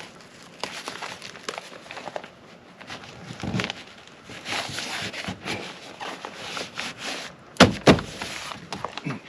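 Rustling and light knocking as a fabric pet door protector is handled and fitted against a car door, with two sharp knocks in quick succession near the end.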